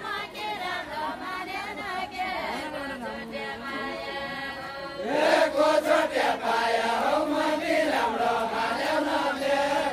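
Deuda folk song from far-western Nepal, chanted by the dancers' voices in a group. About halfway through, a louder, fuller chorus of voices takes up the song.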